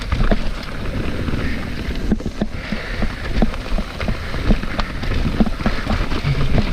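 Mountain bike riding down a rough, technical trail: tyres rumbling over dirt and roots with frequent knocks and rattles from the bike.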